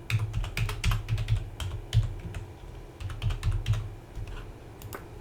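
Computer keyboard typing: keys tapped in quick irregular runs, as when keying in an account number, thinning out about four seconds in with one last keystroke near the end.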